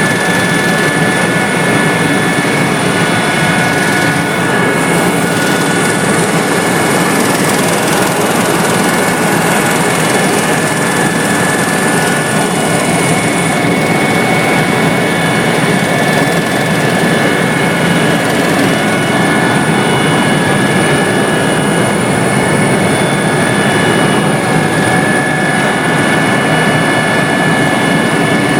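Helicopter in flight: steady engine and rotor noise with a constant high-pitched whine.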